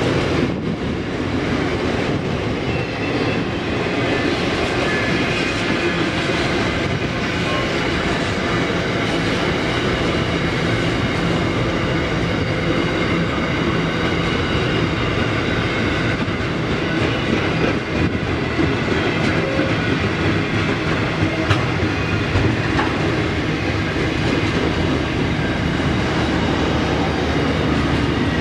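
Container wagons of an intermodal freight train rolling past: a steady, continuous noise of wagon wheels running on the rails.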